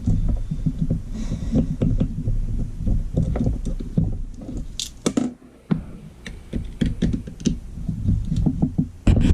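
Plastic and metal parts of a diaphragm water pump being handled and turned by hand: irregular clicks, knocks and scrapes over a low rumble.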